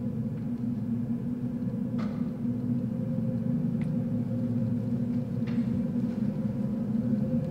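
A steady, low rumbling electronic drone with a faint held tone above it, from the dance's soundscape. A few soft clicks come through about two, four and five and a half seconds in.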